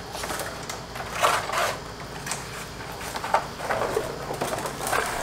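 Handling noises from a new car AC condenser being taken out of its packaging: a series of short, irregular scrapes and rustles.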